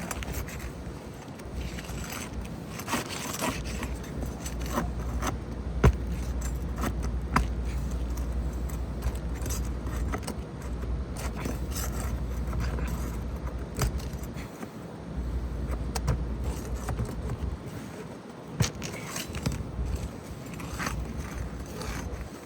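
Irregular scraping, clicking and rattling of hand work on roof shingles as a damaged shingle is pried and worked loose for removal.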